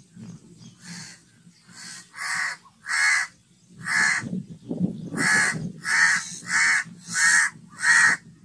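House crow cawing, about ten short caws one after another, roughly one every two-thirds of a second. The first few are faint and the rest are loud.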